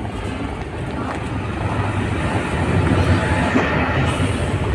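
Freight train of open-top wagons rolling along the adjacent track: a steady, dense low rumble of wheels on rails that swells slightly midway.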